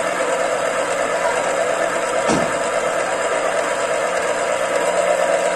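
Small electric citrus juicer motor running steadily, its spinning reamer squeezing fruit, with a brief knock about two seconds in.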